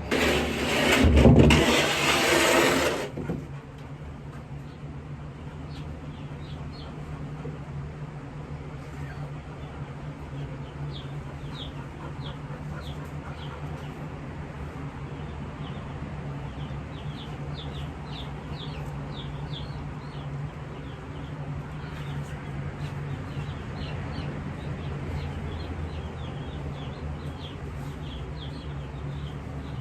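Jumbo Cornish cross chicks peeping, many short high chirps scattered throughout, over the steady hum of a fan. A loud rushing noise fills the first three seconds.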